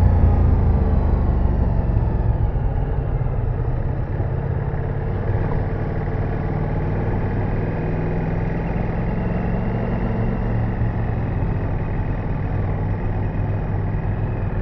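Ducati Multistrada V4 S's V4 engine running with a steady low drone, easing off slightly in the first couple of seconds and then holding even.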